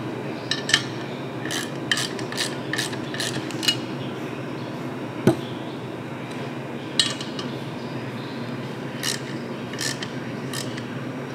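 Ratchet wrench clicking in short groups of strokes while tightening the handlebar clamp nuts on a minibike fork, with one sharper metal click about five seconds in, over a steady low hum.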